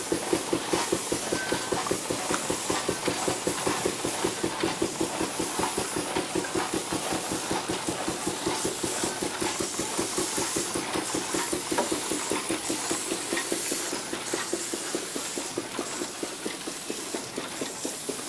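1917 Farquhar steam traction engine running, with a fast, even chuffing beat over a hiss of escaping steam. It eases a little in loudness over the last few seconds.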